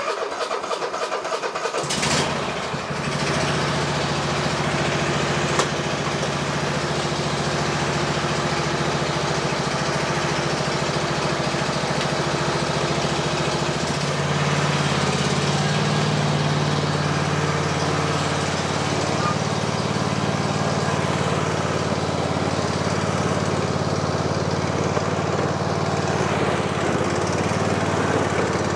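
Ariens riding lawn tractor's engine catching with a brief rev about two seconds in, then running steadily. About halfway through its note shifts and gets a little louder as the tractor is driven off.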